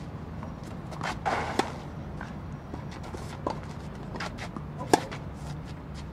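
Tennis ball struck back and forth in a rally on a clay court: sharp racket hits, the loudest about five seconds in, with softer ball bounces in between and a short scuffing rush of noise about a second in.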